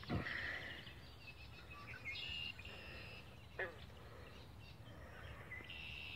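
Birds calling faintly over low outdoor background noise: several short chirps and trills, and one call that slides down in pitch about three and a half seconds in. A brief knock at the very start.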